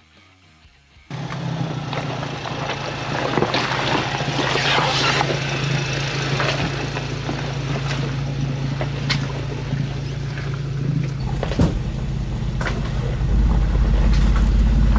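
Ford Bronco engine running through an AWE 0FG cat-back exhaust as the truck crawls over a rocky trail: a steady low exhaust note, with tyres crunching and knocking over rocks. It cuts in suddenly about a second in, and the exhaust rumble grows louder and deeper near the end.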